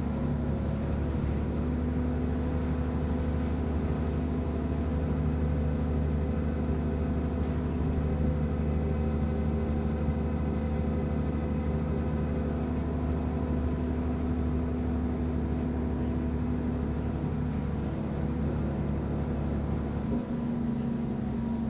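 Inside a city bus as it drives along: the engine and drivetrain give a steady hum with several held tones, over road noise.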